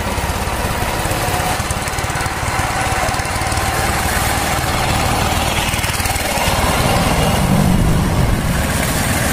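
Road traffic: small motor-vehicle engines running steadily, with a motorcycle passing close and loudest about seven to eight seconds in.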